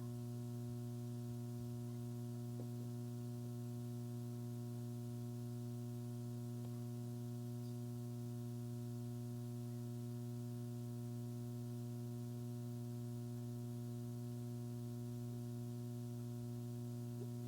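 Steady electrical mains hum in the sound system, a low constant hum with a buzzy ladder of overtones.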